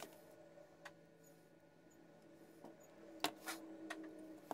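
Faint, scattered clicks and taps of 0.036-inch stainless steel orthodontic wire and pliers as a labial bow is bent and tried against a dental stone model, most of them in the second half, over a steady low hum.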